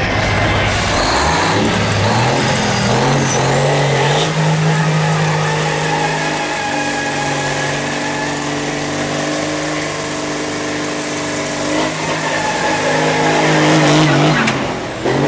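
Big-rig Cummins diesel engine in a Freightliner dump truck revving up from low speed to high rpm over about two seconds. It holds there steadily with a high turbocharger whistle, then drops back off near the end.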